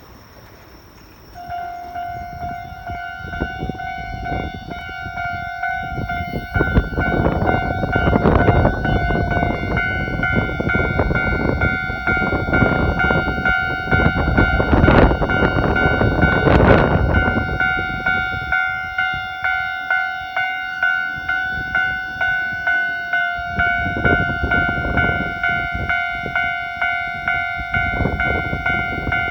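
Japanese level-crossing warning bell starts about a second and a half in and rings on in an even, rapid rhythm. A Keikyu 1000-series electric train passes over the crossing, its wheels clattering over the rail joints, loudest in the middle, with more wheel clatter near the end.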